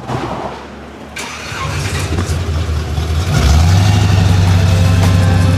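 Car engine starting and running, its sound growing louder and settling into a steady low drone about three and a half seconds in.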